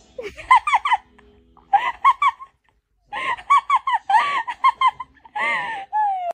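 A tabby cat making rapid squeaky chirping calls in four short bursts, each call bending up and down in pitch. The last burst ends in a longer falling call.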